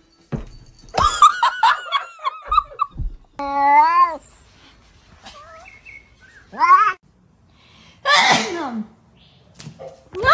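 Domestic cats meowing in a string of short, separate calls, each rising and falling in pitch. A louder, harsher burst comes about eight seconds in.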